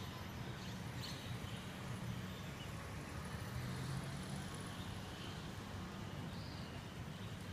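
Outdoor ambience: a steady low hum with a few faint, brief bird chirps scattered through it.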